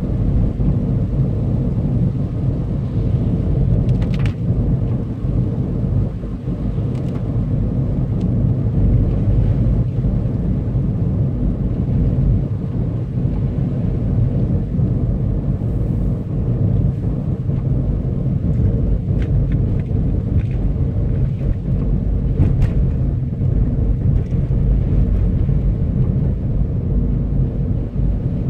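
Steady low rumble of a car driving on a wet road, heard inside the cabin: tyre and engine noise, with a few faint ticks.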